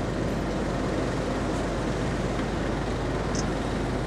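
Steady low rumble and hum of a ro-ro passenger ferry's engines and machinery, heard from on board as it gets under way, with no change in level.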